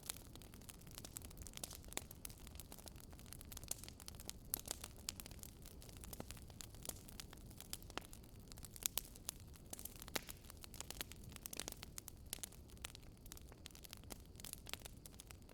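Wood fire crackling in a fireplace: many small irregular pops and snaps, a few sharper ones, over a low steady rumble of burning.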